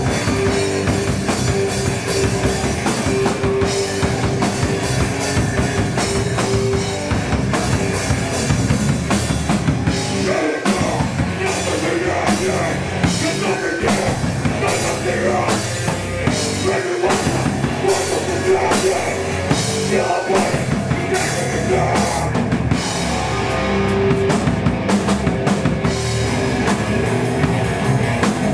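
Hardcore band playing live and loud: distorted electric guitar, bass guitar and a drum kit with fast cymbal hits. The bottom end cuts out briefly a few times near the middle, in short stop-start breaks.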